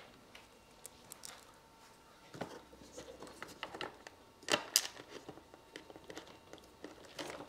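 Scattered light clicks, scrapes and knocks of hard plastic parts and small screws being handled as a plastic bracket is pressed into a car's plastic front bumper cover. Louder knocks come about two and a half seconds in and again around four and a half to five seconds.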